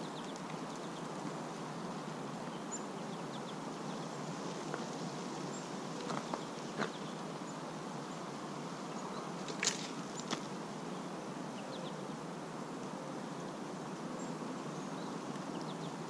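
Steady outdoor background noise with a few brief, faint high chirps from small birds and a handful of short sharp clicks; the loudest click comes about ten seconds in.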